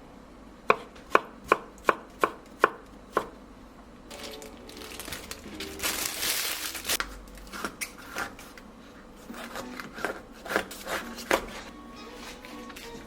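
Knife chopping food on a cutting board: seven quick, even chops about two and a half a second, then a few seconds of hissing noise, then more chops at an uneven pace.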